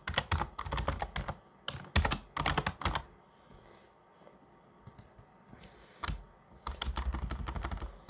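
Computer keyboard keystrokes: quick typing for about three seconds, a pause of about three seconds, then typing again near the end.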